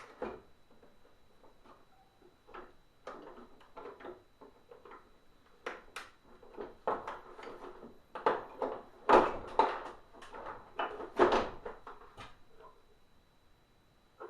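Plastic housing and parts of a Hoover SteamVac carpet cleaner being handled and pried apart by hand during disassembly: irregular clicks, knocks and scraping. The handling is busiest and loudest toward the end.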